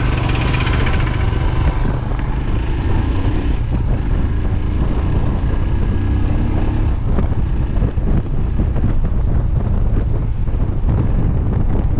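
Royal Enfield Himalayan's 411 cc single-cylinder engine running steadily while riding a rough dirt road, with heavy wind buffeting on a helmet-mounted camera microphone. Frequent short knocks and rattles from the bumpy surface come in the second half.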